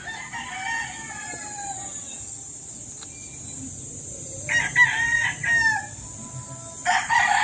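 Roosters crowing: a faint crow at the start, then two louder crows about four and a half and seven seconds in.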